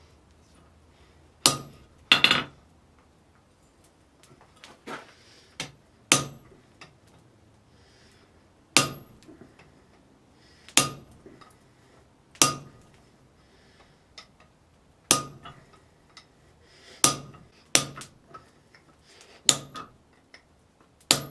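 Hand hammer striking a slot punch into a red-hot bar of mild steel on an anvil, punching the slot for a sword guard: about a dozen sharp blows, spaced a second or two apart, each with a short metallic ring, with a few lighter taps between.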